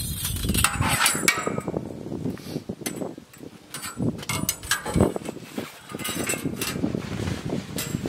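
A sawmill's steel band blade uncoiled and handled, the flexing steel rattling and clanking in an uneven string of sharp knocks and clicks.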